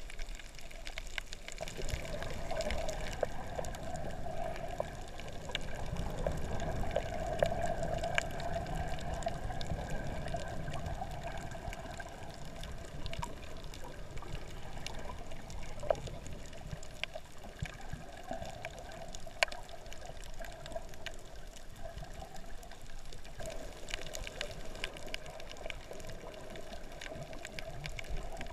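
Water moving around a camera held underwater while snorkeling: a muffled, steady sloshing rush with scattered small clicks, a little louder for the first several seconds.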